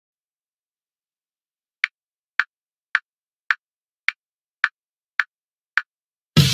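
A count-off of eight evenly spaced, identical metronome clicks, a little under two a second, starting about two seconds in; music with drums comes in on the next beat, right at the end.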